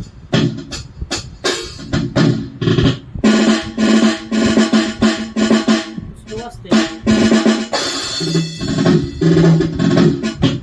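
Roland SPD-20 Pro electronic percussion pad played as a drum kit: a steady run of snare and bass-drum hits with rapid rolls, over a sustained low pitched tone.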